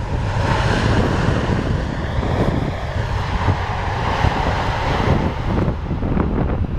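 Strong wind buffeting the microphone, with the broad engine noise of a landing jet airliner swelling over the first second and dropping away sharply about five and a half seconds in.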